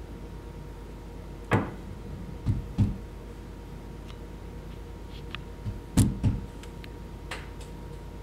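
Several dull thumps and pats as a sheet of hand-rolled soba dough is folded over and pressed down on a floured wooden board, in two bunches about a second and a half in and again about six seconds in, over a steady low hum.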